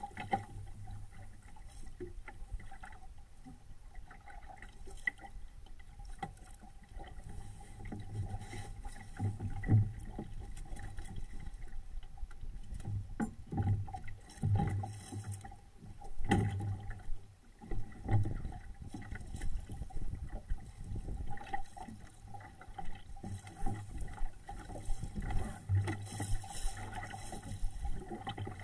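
Water slapping and splashing against the hull of a small SCAMP sailboat under way, with wind rumbling on the microphone and irregular knocks from the boat. A steady hum sounds throughout.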